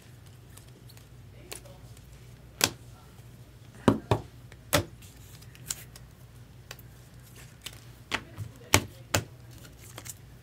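Trading cards and their packaging being handled on a table: irregular sharp clicks and taps, about eight in ten seconds, over a low steady hum.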